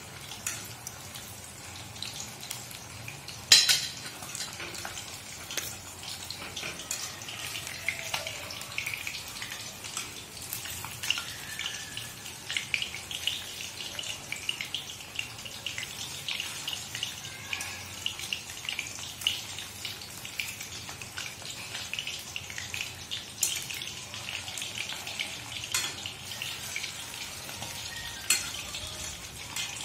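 Besan-coated fish pieces sizzling in hot oil in a steel kadai, a dense crackle throughout. A metal utensil knocks loudly against the pan about three and a half seconds in, and a few lighter taps and scrapes follow as the pieces are turned with a knife.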